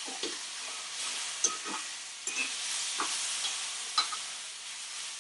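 Steaks searing in a hot cast iron skillet with a steady sizzle. Metal tongs click against the iron pan about five times as the steaks are turned.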